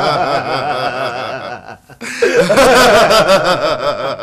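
Two men laughing hard, a long run of quick ha-ha pulses; it dips briefly about halfway through, then picks up again louder.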